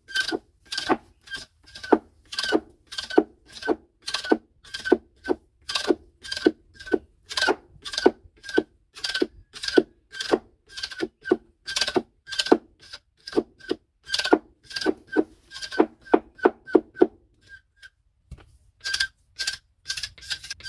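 Homemade hacksaw-blade scraper rasping down a stalk of sugarcane, stripping the rind in quick, regular strokes at about two a second. The strokes stop briefly about three quarters of the way through, then pick up again.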